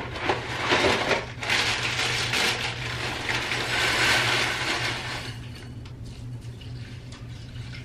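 Dry cereal pouring from the box's crinkly plastic liner bag into a ceramic bowl, a rattling rush that is loudest about four seconds in. Near the end it gives way to a quieter pour of milk into the bowl.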